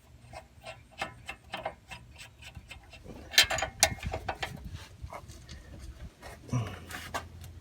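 Irregular metallic clicks and taps of hand tools working the nut onto a sway bar end link bolt, with a louder clatter about three and a half seconds in.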